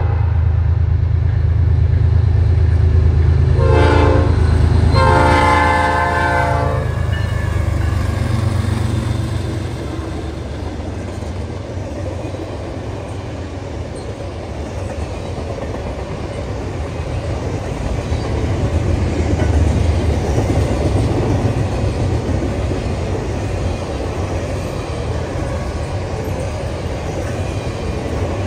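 Diesel freight locomotive's air horn sounds a short blast then a longer one, the close of a grade-crossing signal, over the heavy rumble of the locomotive engines. Then the steady rumble and clatter of steel wheels on rail as double-stack intermodal container cars roll past.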